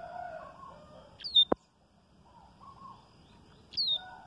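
Caged coleiro-baiano (yellow-bellied seedeater) singing: two sharp, high, downslurred notes, one about a second in and one near the end, with softer, lower warbled notes around them. A single sharp click comes about a second and a half in.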